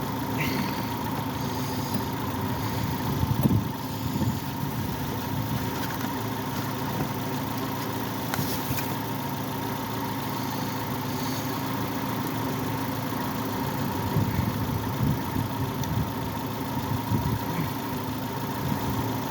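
Car engine idling steadily, with a few light knocks over it, the loudest about three and a half seconds in.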